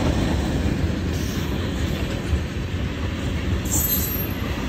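Freight train cars (tank cars and gondolas) rolling past, a steady low rumble of steel wheels on rail, with a brief high-pitched squeal a little before the end.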